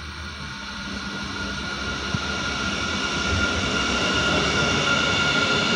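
DB class 463 (Siemens Mireo) electric multiple unit approaching on the track, growing steadily louder, with a steady high whine over the rumble of the running gear.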